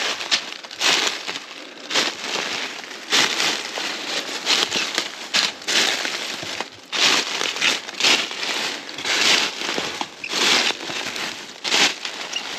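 Footsteps crunching through dry leaf litter while climbing steep ground, about one slow step a second.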